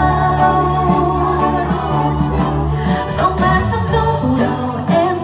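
Karaoke music: a woman singing a Vietnamese pop ballad over a backing track with steady bass, holding long notes.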